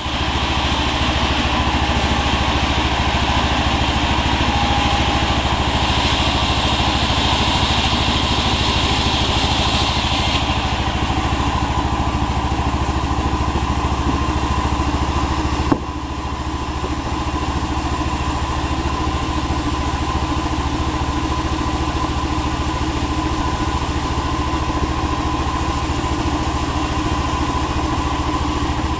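Chainsaw engine running steadily while sawing hardwood, with a hiss on top for the first ten seconds or so. A sharp knock comes about sixteen seconds in, after which it runs a little quieter.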